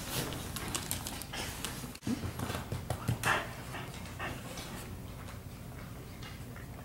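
Pet dogs moving about and playing at close range: short scuffles, taps and rustles, loudest about three seconds in.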